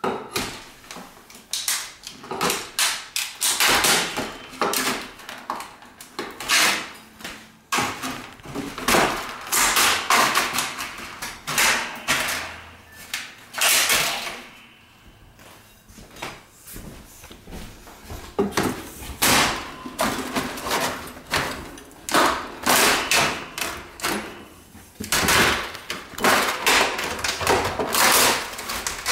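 Irregular knocking, tapping and scraping of a pry tool against a wooden window frame as an old window is worked loose, in clusters with short pauses between them.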